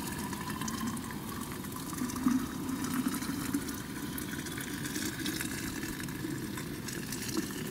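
Hot water poured from a cooking pot into a vacuum flask (thermos) in a steady stream, the pitch of the filling rising slowly as the flask fills.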